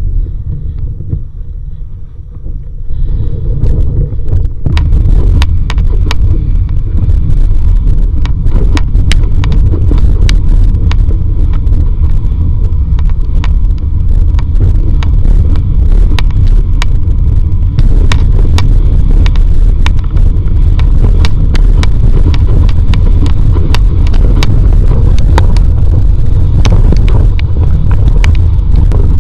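Heavy wind rumble on an action camera mounted on a windsurf rig planing at speed in a force 5–6 wind, peppered with frequent sharp ticks of water and chop slapping the board. It is softer for the first couple of seconds and builds to a steady loud roar about three seconds in.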